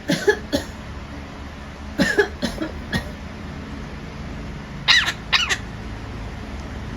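Monk parakeet (Quaker parrot) imitating a human cough: short cough-like bursts in three bouts, about two to three seconds apart.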